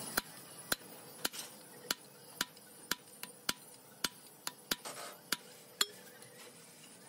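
Steel bar knocking against the steel gland of a hydraulic cylinder, about a dozen sharp metallic clinks at roughly two a second, driving the piston and gland assembly out of the barrel.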